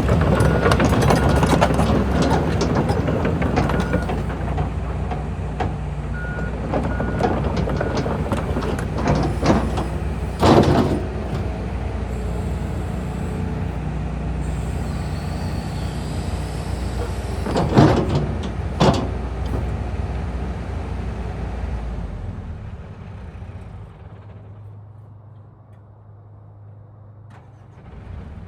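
Hitachi ZX245USLC-6N excavator working: its diesel engine running hard with the hydraulics, with three sharp metal clanks, one about a third of the way in and two in quick succession past the middle. A high tone sounds in short beeps early on, and for the last few seconds the engine drops back to a quieter idle.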